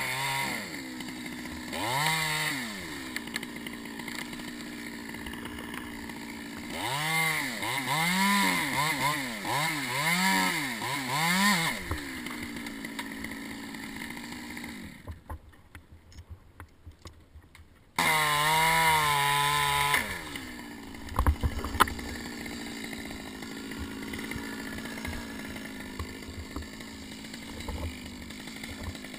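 Petrol Stihl chainsaw revved up and down in a series of throttle blips, settling between them to a steady idle. About halfway through it drops away for a few seconds, then comes back at high revs for about two seconds before idling again, with a few sharp knocks just after.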